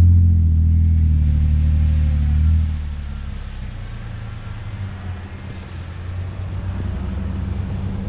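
Off-road vehicle's engine running while driving, with a heavy low drone that drops off sharply about two and a half seconds in, as if easing off the throttle, then a quieter steady running rumble.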